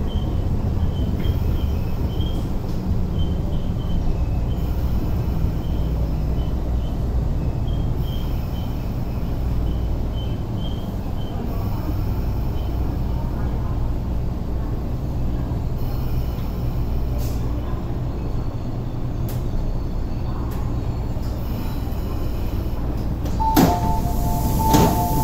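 Metro Cammell (MLR) electric train running into the platform and coming to a stop, its ageing DC traction motors giving a deep, bass-heavy rumble. Near the end a sharp clunk and a short two-tone beeping mark the doors being released and opening.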